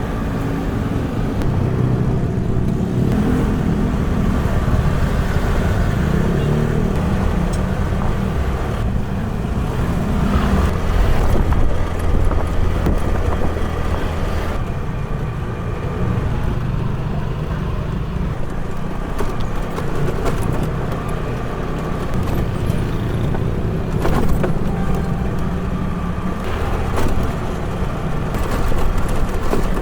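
Steady low rumble of road-vehicle noise.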